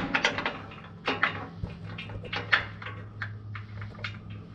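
Irregular small metallic clicks and taps of a skid-plate mounting bolt and its hardware being handled and fitted up through the mount, over a steady low hum.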